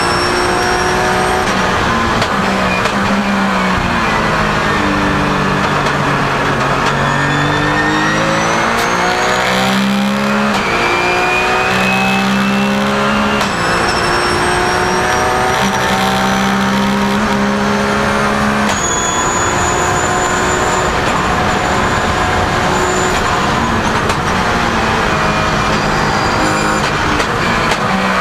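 Porsche 997 GT3 Cup's flat-six race engine, heard from inside the cockpit at full racing pace and running on a 59 mm intake restrictor. The revs fall for several seconds, then climb again and again through a series of upshifts, the pitch dropping back at each shift, over a steady rush of road and wind noise.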